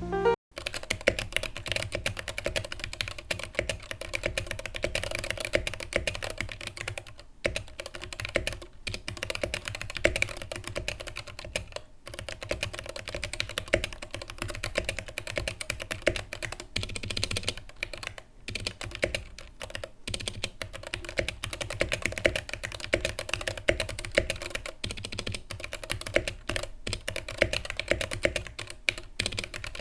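Typing on an Idobao ID80 mechanical keyboard fitted with Gateron Black Ink linear switches: a fast, continuous stream of keystroke clacks with a few brief pauses.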